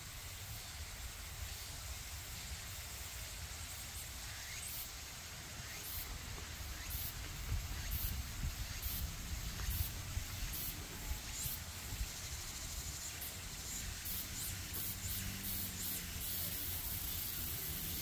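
Steady hiss of a flowing stream under a low rumble, with scattered faint, short high ticks from about four seconds in.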